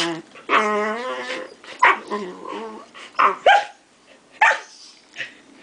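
Samoyed and Great Dane puppies play-fighting, vocalising: one drawn-out, wavering call near the start, then short, sharp barks and yips spaced about a second apart.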